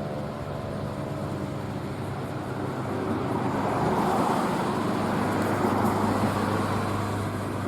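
Road traffic: a car passing, its tyre and engine noise swelling from about three seconds in and easing off near the end. During the first second or so, the last faint falling tone of a Federal Signal 2001-130 siren winding down fades out underneath.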